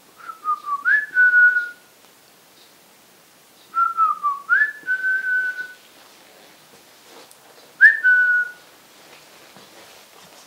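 A person whistling a two-note call three times: a short falling note, then a jump to a higher note that dips slightly and is held. The third call is shorter, only the higher note. It is a whistle to rouse the sleeping dog.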